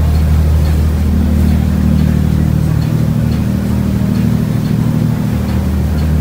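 Tour boat's engines running steadily under way: a low, even drone over a steady rush of water and wind along the hull.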